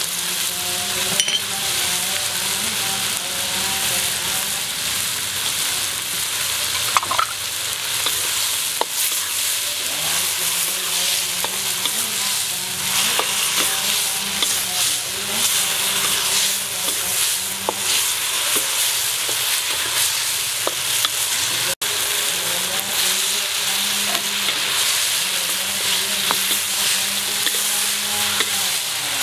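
Pineapple, peppers and pork rib pieces sizzling in a hot wok as a wooden spatula stirs and scrapes them, a steady frying hiss with repeated scraping strokes. A split-second gap about two-thirds through.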